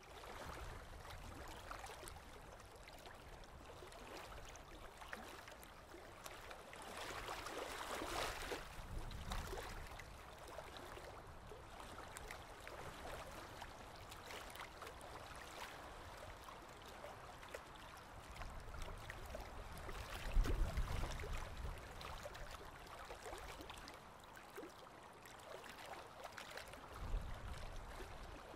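Wind and choppy river water: a steady rushing wash, with low gusts buffeting the microphone, the strongest about two-thirds of the way through.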